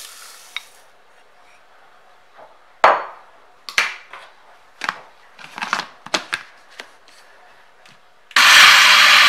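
A series of sharp plastic knocks and clicks as the countertop blender's jar and lid are handled, then about eight seconds in the blender's motor starts suddenly and runs loud and steady, grinding brown sugar into powdered sugar.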